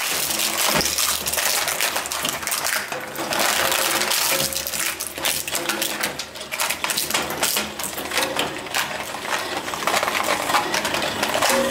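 Plastic remote-control T-rex toy being chewed up by an industrial shredder's steel cutters: a dense, unbroken run of hard plastic cracking, snapping and clattering as the toy's body breaks apart.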